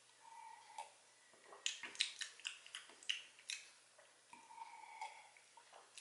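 A person drinking from a plastic cup: quiet sips and swallows, with a quick run of wet clicks and gulps in the middle.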